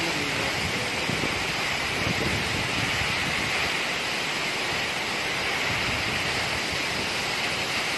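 Waterfall pouring down a steep rock face: a steady rush of falling water, even and unbroken.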